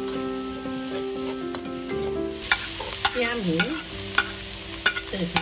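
Stir-frying in a wok: a spatula scraping and clicking against the wok as minced pork and sliced shiitake mushrooms sizzle in oil. Soft background music fades out about two seconds in, and the sizzling and scraping grow livelier after it.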